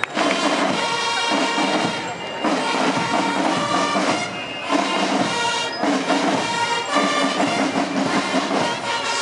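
School marching drum and bugle band (banda de guerra) playing a march: snare drums under bugles sounding held notes, in phrases broken by brief pauses.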